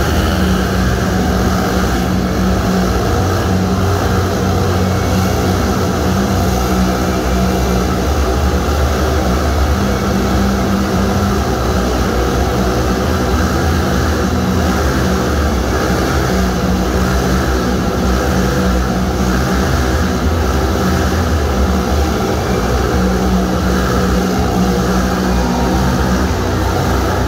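Motorcycle engines running at speed inside a steel-mesh globe of death: a loud, continuous engine drone.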